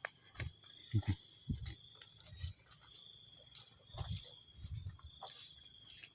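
Insects chirring in a steady high-pitched chorus, with scattered clicks and a few irregular low thuds over it.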